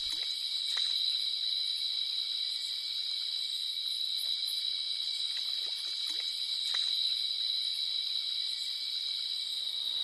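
Steady high-pitched chorus of night-calling insects, with a few faint short chirps over it.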